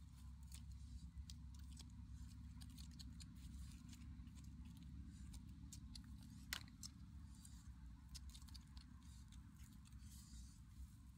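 Faint scattered clicks and crackles from snails roasting in smouldering embers as they are poked and turned with a stick, with one sharper click about six and a half seconds in, over a low steady rumble.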